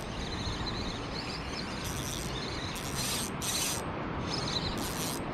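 Steady rush of wind and rippling seawater, broken by four short high hisses.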